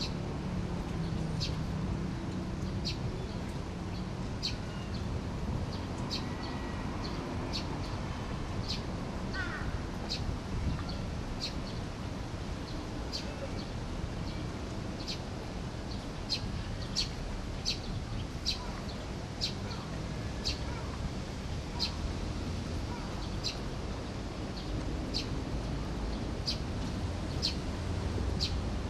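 A small bird chirping over and over, short high notes about once a second at uneven intervals, over a steady low outdoor rumble.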